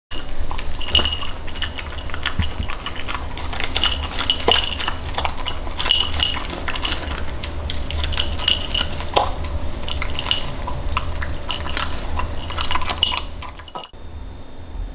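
Shetland sheepdog eating from a metal food bowl: food and muzzle knock against the bowl in many short, irregular clinks, each with a brief metallic ring.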